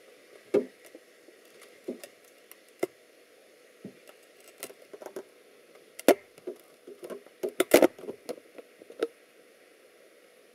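Scattered light clicks and taps at irregular intervals, a few early on and then a bunch of them close together about six to nine seconds in, over faint room noise.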